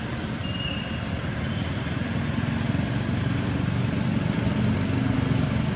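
Steady low rumble of motor traffic with a wavering engine hum, growing a little louder toward the end.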